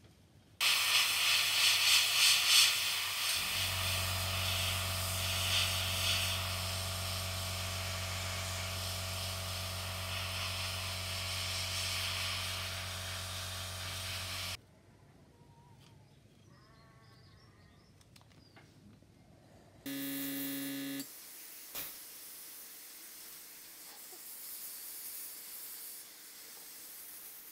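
Airbrush spraying paint with a steady hiss of air, joined about three seconds in by the hum of the airbrush compressor's motor kicking in; both stop together about halfway through. After a short pitched tone, a fainter airbrush hiss runs on near the end.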